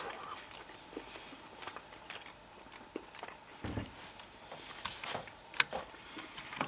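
Faint chewing and mouth sounds of someone eating pieces of chicken, with scattered small clicks, a low thump a little after three and a half seconds and a few sharper clicks around five seconds.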